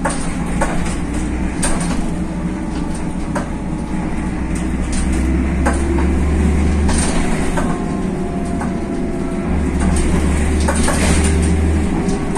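Mercedes OM906 LA six-cylinder diesel and ZF automatic gearbox of a BredaMenarinibus M240 city bus running, heard from inside the passenger cabin: a steady low rumble that swells and eases, with an engine tone rising slowly through the middle, and frequent short rattles and clicks from the bodywork and fittings.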